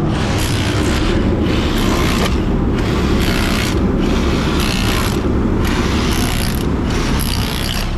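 Steady drone of a portable generator and forced-air kerosene heater, with repeated scraping strokes about once a second from frozen mud being chipped out of skid steer tracks.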